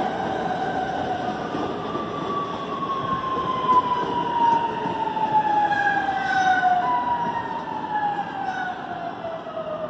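CPTM Series 9000 electric multiple unit running past along the platform. Its traction motors whine in several tones that fall steadily in pitch as the train slows, over the rumble of steel wheels on the rails.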